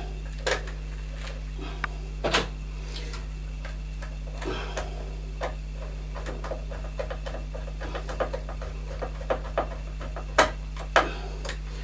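Hand screwdriver driving a screw into a gas boiler's control panel: irregular small clicks and scrapes of the tool turning, with a few louder knocks about half a second in, about two seconds in and twice near the end, over a steady low hum.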